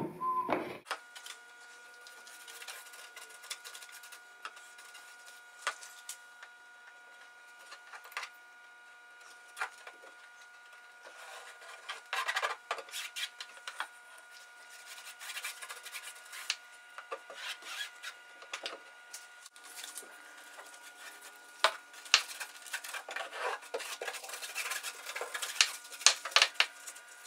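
Paintbrush scrubbing water-based acrylic paint onto door-screen mesh over plywood: bristles scratching and rubbing in bursts of short strokes, busiest near the middle and again toward the end.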